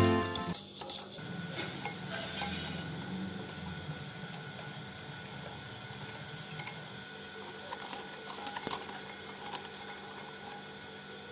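Kitchen utensils clinking lightly and now and then against dishes, a few scattered clicks over a faint steady hum.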